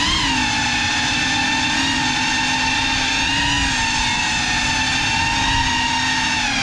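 Motors and propellers of a GEPRC CineLog35 FPV cinewhoop quadcopter whining steadily at one high pitch with overtones, the pitch dipping briefly just after the start and again near the end.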